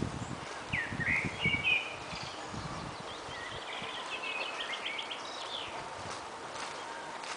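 Songbirds calling and singing in short chirps and trills over a steady outdoor hiss. Irregular low rustling knocks in the first two seconds.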